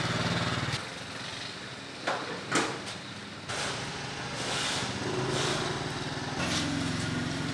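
A small engine running steadily. Its sound drops away briefly, and two sharp knocks come about two seconds in.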